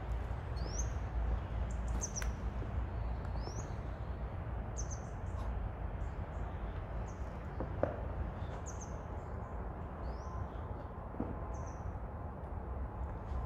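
A bird chirping over and over, short high chirps rising in pitch about once a second, over a steady low rumble of movement and handling noise.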